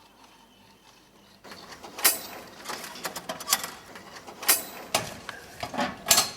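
A mechanism clicking and clacking: irregular sharp knocks with rattling between them, starting about a second and a half in and cutting off abruptly at the end.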